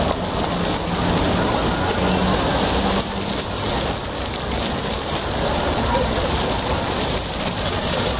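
Water jets of a floor fountain splashing onto wet paving: a steady hiss of falling water like rain.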